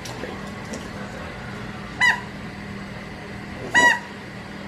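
English bulldog giving two short, high, squeaky whines, the second longer and louder, as he begs for a new toy.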